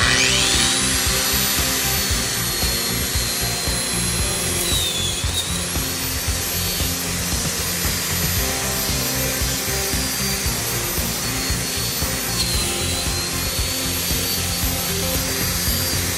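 Arbortech Mini Grinder spinning up at the start and then running steadily with a high whine as its sanding pad strips the finish off a maple floor. The whine sags in pitch briefly twice, about five and about twelve seconds in.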